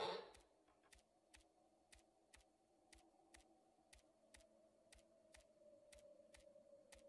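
Faint, evenly spaced footstep clicks, about two a second, of a cartoon character walking uphill, over a faint steady tone.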